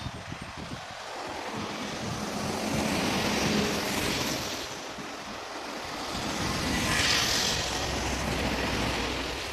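Highway traffic passing close: the tyre and engine noise of trucks and cars swells as vehicles go by, loudest about three and a half seconds in and again about seven seconds in. From about seven seconds on, a heavy truck's low engine drone carries underneath.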